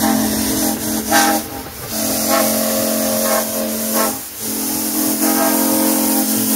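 Locomotive whistle blowing long, steady blasts, with two short breaks, over a background hiss.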